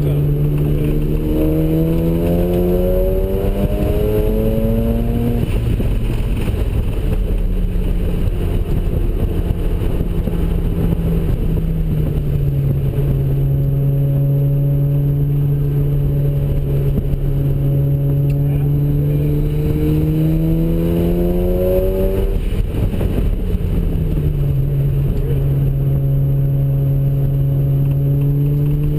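Ported, twin-turbocharged Mazda RX-7 rotary engine under hard driving, revving up for about five seconds, then falling off. It then runs through a long stretch of rising and easing engine pitch, drops sharply about 22 seconds in and climbs again near the end.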